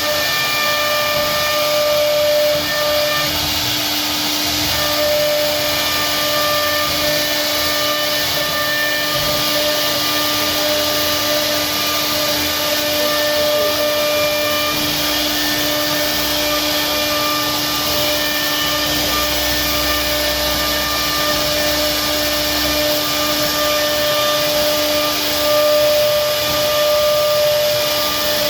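CNC router spindle running as it carves wood: a steady high whine over a continuous hiss, the whine's upper tones dropping out and returning now and then.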